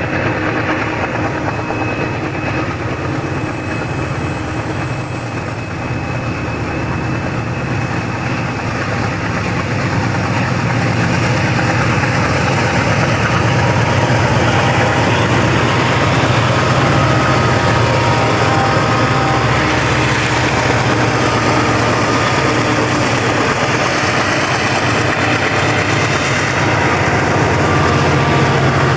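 Santa Fe diesel freight locomotives, led by SF30C 9544 and SD45B 5501, running steadily as they pass close by, with a deep engine drone and wheel-on-rail noise. The noise grows from about ten seconds in as the units come alongside, and a few thin whines sound over it in the second half.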